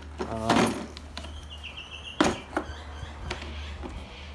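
Clicks and handling noises of an ARB tyre puncture repair kit case being opened and its contents handled, with a sharp click about two seconds in.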